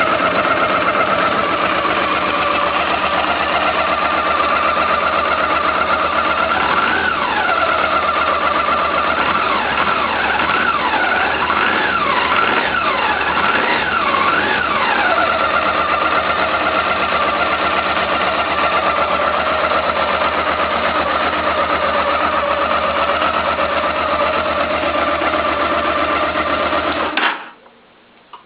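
Carburetted Honda Africa Twin V-twin engine idling steadily, freshly serviced with valve clearances adjusted and carburettors cleaned. It is revved once, then blipped four or five times in quick succession, and settles back to idle. About 27 seconds in it is switched off and cuts out suddenly.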